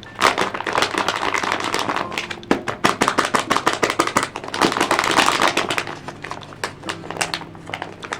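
Paper and tape being handled up close: dense crinkling and crackling with many quick taps, in two busier stretches about a second long.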